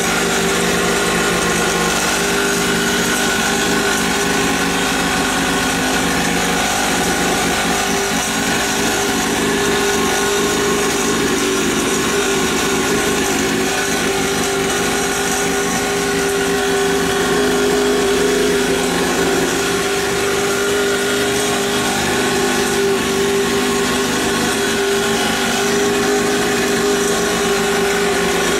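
Small 50cc two-stroke mini dirt bike engine running steadily with a high, buzzing note and only slight changes in revs.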